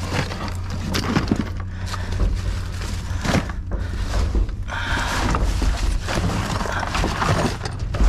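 Hands rummaging through a pile of discarded tools and hardware: repeated irregular knocks, clatter and scraping as items are shifted about, over a steady low hum.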